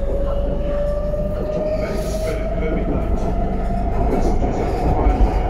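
BTS Skytrain electric train heard from inside the carriage as it runs on the elevated track and pulls into a station. There is a steady wheel-and-track rumble and one electric whine that climbs slowly in pitch.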